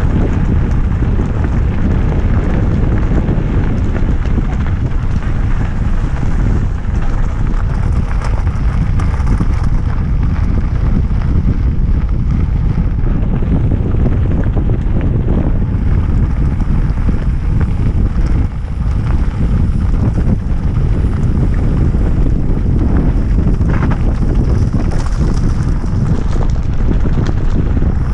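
Heavy wind buffeting on the microphone of a camera riding on a mountain bike descending fast, over the rumble of tyres on a loose gravel track.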